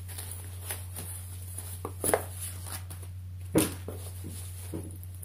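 Hands handling a fabric first-aid kit pouch and tugging at its zipper pull: a few short knocks and rustles, the loudest about two and three and a half seconds in, over a steady low hum.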